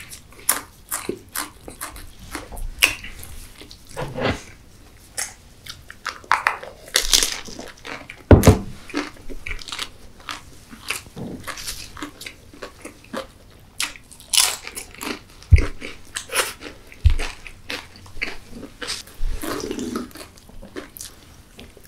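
Close-up chewing and biting of a crispy chicken burger topped with Doritos tortilla chips, with many irregular sharp crunches.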